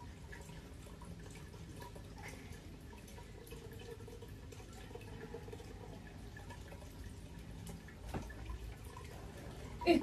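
Aquarium air bubbles rising from an airstone and bursting at the surface, with the filter running: a faint, steady bubbling and dripping of water. A dull thump about eight seconds in and a brief louder knock just before the end.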